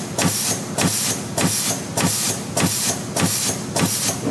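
CNC piston ring and wave spring machine forming flat-wire retaining rings, running in an even repeating cycle: a click and a burst of hiss a little under twice a second, in keeping with its rated 100 rings a minute.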